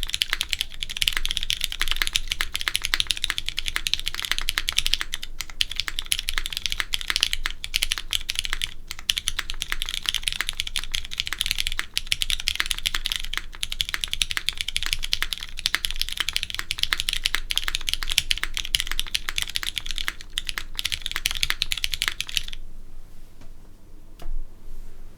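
Fast, continuous typing on a Keycult 1/60 mechanical keyboard with Cherry MX2A Brown tactile switches on an aluminum plate, a dense run of key clicks that is ever so slightly sharp. The typing stops about 22 seconds in, leaving only a few faint clicks.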